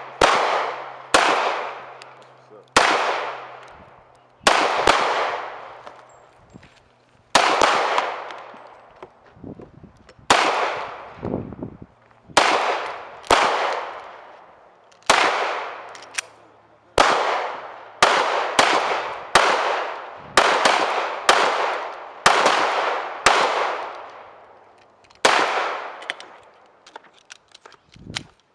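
Gunshots at a shooting range: about twenty sharp reports in irregular succession, roughly one a second, each followed by a ringing tail.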